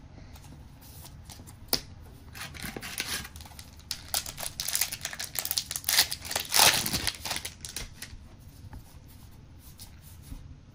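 Trading cards and a booster-pack wrapper being handled: rustling, crinkling and clicking of card stock and foil wrapper as a pack is opened and its cards pulled out. The sound is loudest a little past the middle.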